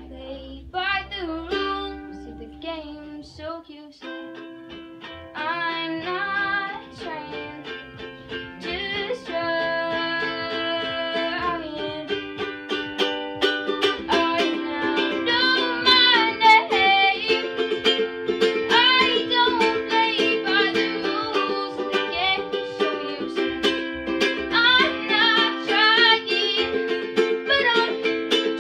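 A ukulele strummed in chords while a voice sings along, starting quietly and growing louder after the first few seconds.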